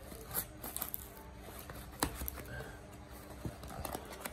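Scissors snipping through packing tape and cardboard on a parcel: a few sharp clicks and snips with rustling of the box, the sharpest snip about two seconds in.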